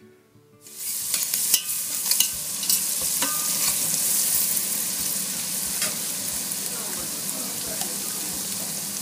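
Sliced onion, tomato and curry powder sizzling loudly in hot oil in a stainless steel pot, with a spoon stirring and clicking against the pot. The sizzling cuts in suddenly less than a second in.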